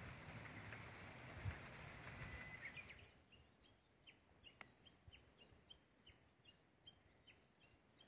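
A small songbird chirping faintly, one short high note repeated at a steady pace of about three a second. For the first three seconds a steady rushing outdoor noise covers it, then cuts off.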